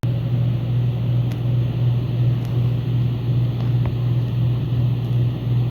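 A steady low hum over background noise, with a few faint clicks.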